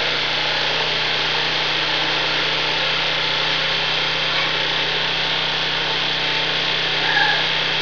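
Small 750-watt portable generator engine running steadily on wood gas, throttled up to about its normal full speed, with no load on it yet.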